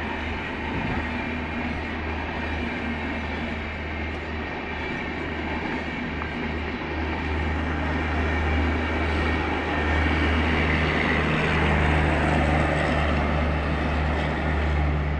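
The 12303 Poorva Express's LHB coaches run past at high speed with a steady rumble of wheels on rail. It grows louder toward the end as the rear power car goes by.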